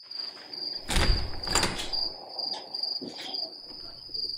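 Crickets chirping in a steady, evenly pulsing high trill, with a few dull thumps and knocks over it, the loudest about a second in.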